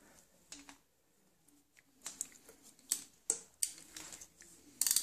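Socket ratchet clicking in short, uneven strokes while the cam chain tensioner is screwed back into a Triumph Bonneville engine. There is a single click near the start, and the clicks pick up about two seconds in and come faster toward the end.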